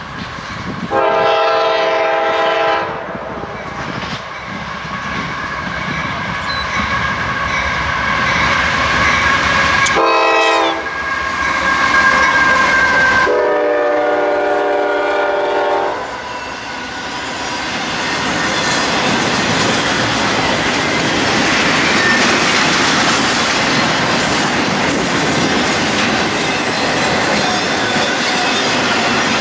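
Locomotive air horn sounding three blasts, the second one short, as a train approaches, followed by the train passing with steady wheel and rail noise and clickety-clack.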